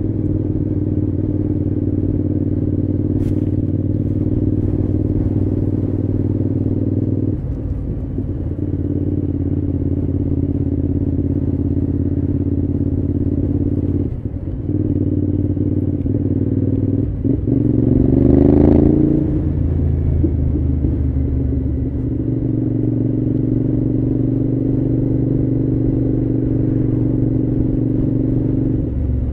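Cagiva V-Raptor 1000's 996 cc 90-degree V-twin running at a steady speed. The note dips briefly about 7 and 14 seconds in, and the revs rise for a couple of seconds around 17 to 19 seconds in before settling back to a steady drone.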